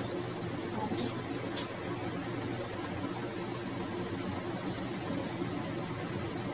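A steady low hum fills the background. Two sharp clicks come about a second in and again half a second later, and a few faint, short, high rising chirps are scattered through.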